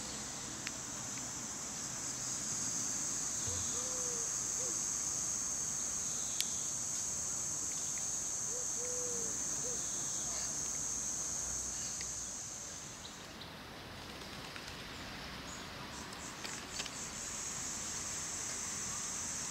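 Summer insects in the trees buzzing in one steady, high-pitched drone. It stops about two-thirds of the way through and starts up again near the end.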